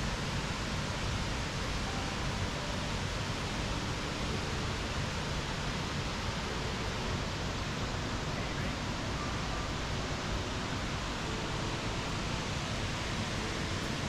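Steady rushing roar of Burney Falls, a large waterfall pouring into its pool, an even wash of noise with no breaks.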